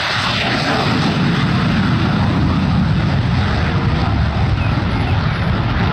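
F-16 fighter jet taking off in afterburner: a loud, steady rush of jet engine noise that grows deeper after about half a second.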